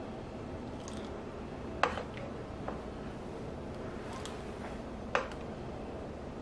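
A serving spoon clinking and scraping against a stainless steel pot as blackcurrant jam is spooned out into containers: two sharp clinks about two and five seconds in, with a few fainter ticks between.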